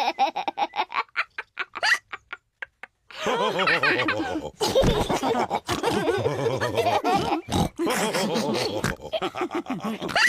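Cartoon pig characters laughing and snorting. A fast run of short laugh pulses fades out, there is a second of quiet, and then a fuller burst of laughter with snorts starts about three seconds in.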